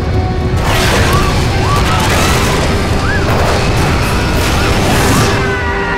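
Film sound of an airliner exploding in mid-air: a deep rumble throughout, a loud blast of explosion noise about half a second in, and passengers screaming over it, under dramatic music.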